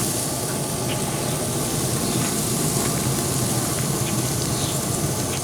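Weber SmokeFire pellet grill running, a steady blowing hum and hiss from its fan and fire, with a few faint light taps.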